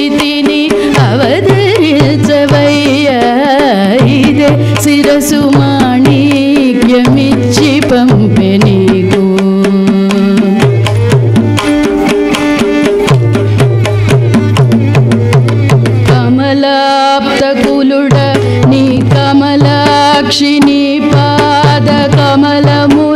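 Live Carnatic music: a melody line from voice and violin that bends and slides in pitch, over a mridangam playing a steady rhythmic pattern.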